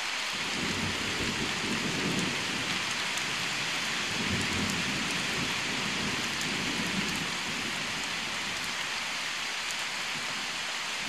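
Steady rain falling, a constant hiss, with a low rolling rumble from about a second in and again from about four seconds in.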